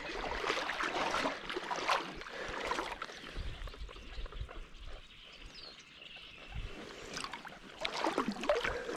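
Paddling a small boat across open water: paddle strokes splashing and water trickling off the paddle, busier at the start and again near the end, with a quieter stretch in the middle.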